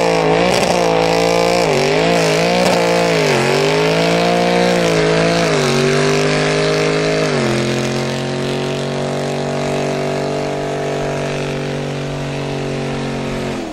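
Mercedes E-Class sedan's engine held at high revs during a burnout, its rear tyres spinning on the pad. The revs rise and fall in quick swings for the first seven seconds or so, then settle a little lower and hold steady before cutting off abruptly at the end.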